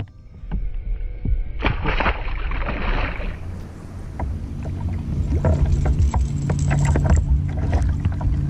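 Outdoor noise from a fishing kayak on open water: wind on the camera and water against the hull, with small clicks and knocks as a spinning reel is wound in.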